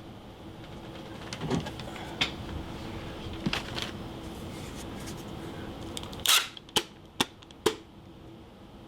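Handling noise from taping a small part to a tool case: scattered light clicks and knocks, then a short, sharp rasp about six seconds in, followed by three quick clicks.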